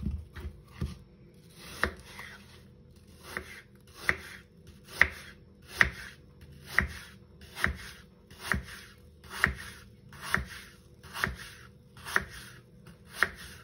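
Kitchen knife slicing a peeled apple into thin slices on a wooden cutting board: each stroke is a short cut through the fruit ending in a sharp tap of the blade on the board, repeated about once a second.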